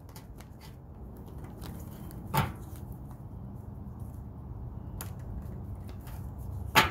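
Tarot cards being handled and shuffled by hand, giving a few sharp taps and clicks, with a quick pair near the end, over a steady low background rumble.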